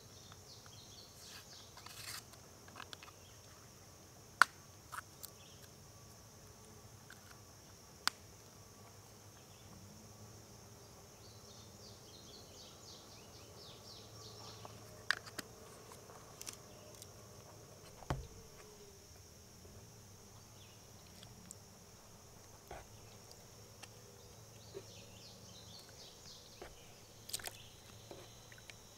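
A steady, high-pitched insect chorus drones on, with a few sharp clicks or taps scattered through it, the loudest about four seconds in.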